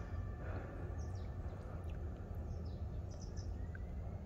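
Outdoor ambience: a steady low rumble with a few faint, short high chirps scattered through it.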